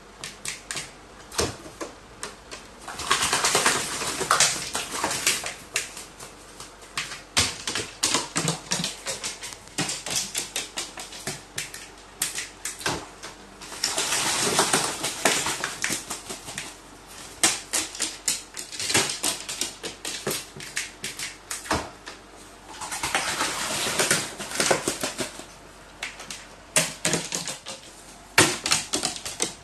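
Carrion crow bathing in a plastic bucket of water: three bursts of splashing and wing-beating, a few seconds in, mid-way, and a few seconds before the end, with many short sharp taps and clicks in between.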